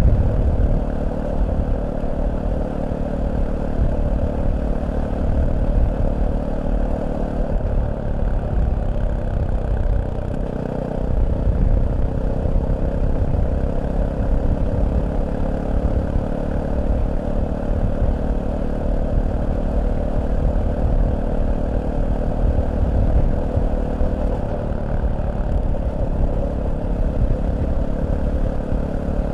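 Fantic Caballero 500's single-cylinder four-stroke engine running on the move, with a low rumble. About 8 seconds in its note falls for a few seconds, then jumps back up near 11 seconds, and it dips briefly again near 25 seconds.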